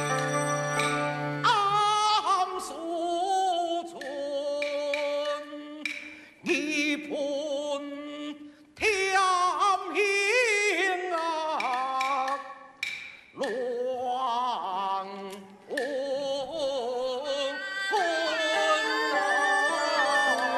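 A Gezaixi (Taiwanese opera) aria: one performer sings slow, wavering, ornamented phrases with traditional instrumental accompaniment. Held instrumental notes open the passage before the voice comes in.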